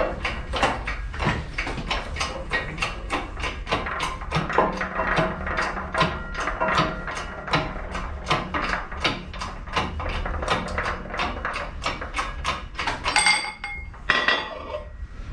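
Shop press forcing a steel axle out of a locomotive wheel. The press pump clatters in a steady rhythm of about three to four strokes a second, then stops. About 13 seconds in there is a brief metallic ring as the axle comes free.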